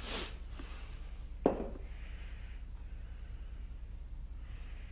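One sharp clink of a hand tool being grabbed about one and a half seconds in, ringing briefly, over a steady low hum.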